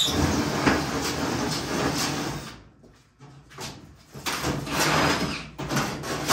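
Dirt late model's aluminum body panels being unscrewed and pulled off with a cordless drill: the drill runs in short spurts while the sheet-metal panels scrape and rattle, with a few sharp knocks.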